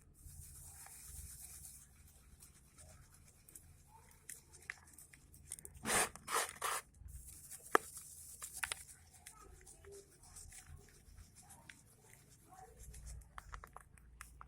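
Dry red sand crumbling and crunching, gritty and earthy. There is a fine hiss of sifting grains at the start and again about eight seconds in, a few loud crunches about six seconds in, a sharp snap just after, and small crackles between.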